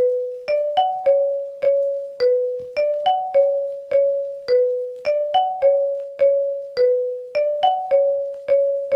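A phone ringtone: a simple melody of struck, electric-piano-like notes, each fading quickly, repeating the same short five-note phrase about every two and a quarter seconds.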